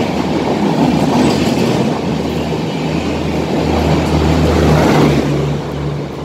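Passenger coaches of an express train rolling past on the rails at reduced speed under a temporary speed restriction: a continuous wheel rumble and clatter, with a steady low hum. It fades a little near the end as the train draws away.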